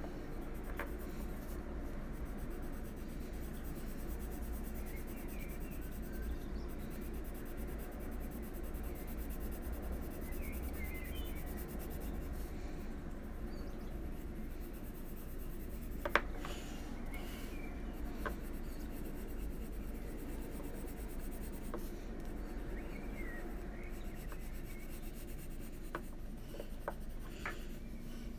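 Faber-Castell Polychromos coloured pencil shading on colouring-book paper: a steady, soft scratching of the pencil tip. There is one sharp click about halfway through.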